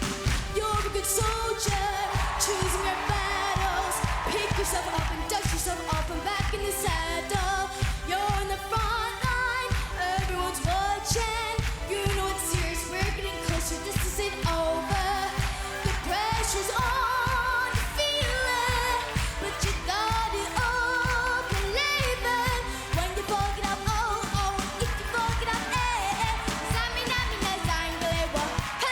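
Pop song with a steady, driving beat and a singer's voice over the band.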